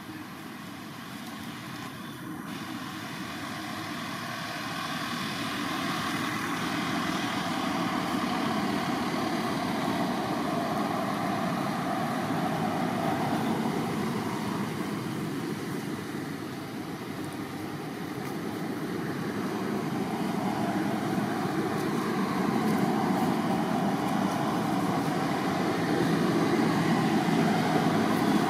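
Continuous background rumble and hiss, rising and falling slowly over several seconds, of the kind made by distant motor traffic.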